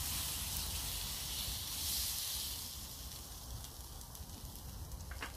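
Pork chop sizzling in a frying pan on a gas stove as it is turned and pressed down, loudest about two seconds in and dying down after about three seconds. A short clack near the end.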